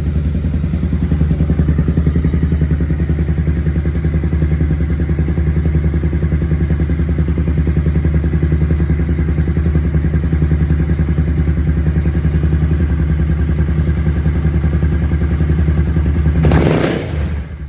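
Honda CBR250R's 250 cc single-cylinder engine idling steadily at about 2,000 rpm in neutral. Near the end there is a brief louder rush, and then the engine shuts off and dies away.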